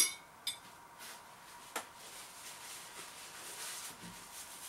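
Metal fork clinking against a bowl, twice in quick succession at the start with a short ring, then a lighter single tap. A faint rustle of a paper tissue follows near the end.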